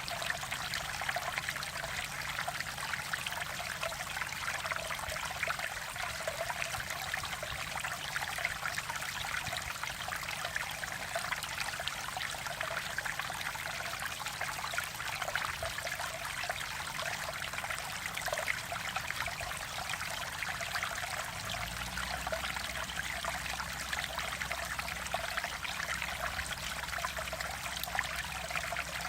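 Mountain valley stream flowing steadily, an even rushing and trickling of water.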